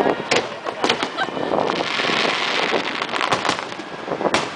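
Aerial fireworks shells bursting overhead: sharp bangs, two in the first second, a quick cluster of several about three seconds in and another near the end, over a steady hiss of crackle and crowd noise.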